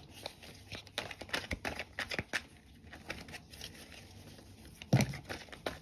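A deck of tarot cards being shuffled by hand: a run of quick papery card flicks and slaps that thin out after about two and a half seconds, with a short, louder low sound about five seconds in.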